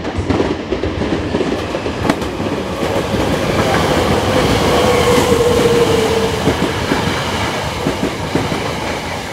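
Hankyu electric train running along the platform, its wheels clattering over rail joints and points, loudest around the middle. A faint whine dips slightly in pitch partway through.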